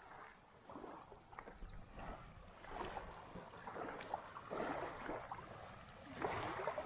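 Small waves washing gently onto a sandy beach, swelling and fading a few times.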